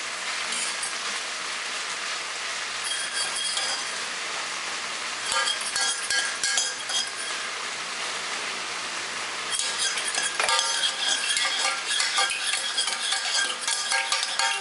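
Metal spoon stirring, scraping and clinking inside a small stainless steel saucepan, in two spells of rapid ringing clinks, the second starting near the middle and running on. A steady hiss lies underneath.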